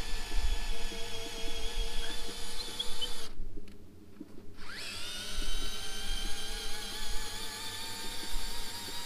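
Power drill boring into the roundwood timber doorway frame for a stainless steel fixing rod, its motor whining steadily under load. It stops about a third of the way in and spins back up, rising in pitch, a second and a half later.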